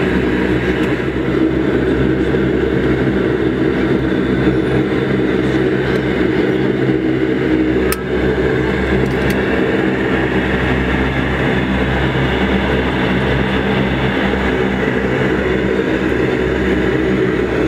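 Cabin noise of a Bombardier Dash 8 Q400 taxiing, heard inside the cabin from a front-row window seat: its two Pratt & Whitney PW150A turboprops and propellers run at low power as a steady drone with several steady tones. There is a single sharp knock about eight seconds in.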